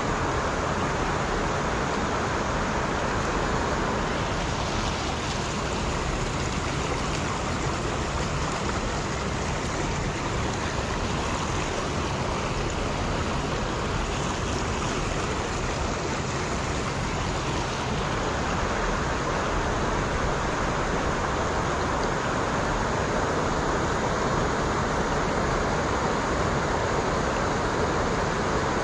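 Steady rushing of fast, turbulent stream water, with water spilling over a small weir just upstream.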